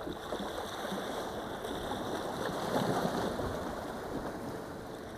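Sea waves washing against the rocks of a breakwater: a rush of water that swells to its loudest about three seconds in, then eases.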